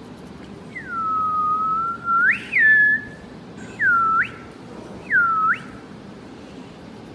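Whistling in clear single tones. A long whistle that sweeps sharply up and back down runs from about one to three seconds in, followed by two short dip-and-rise whistles.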